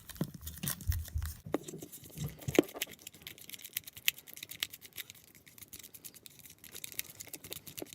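Glue and water being stirred in a bowl with a utensil: irregular clicks and scrapes of the utensil against the bowl, busier in the first few seconds and sparser after.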